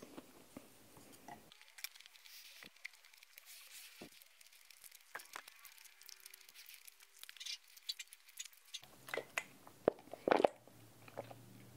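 Close-miked eating sounds: soft wet mouth clicks and chewing with scattered crackles. Near the end come louder sipping sounds from a drink drawn through a straw in a plastic cup.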